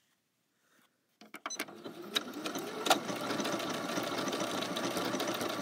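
Janome Skyline S7 sewing machine stitching an overedge stitch with its M foot to finish a raw fabric edge. It starts after about a second of silence with a few clicks, then runs steadily, with one sharp click about three seconds in.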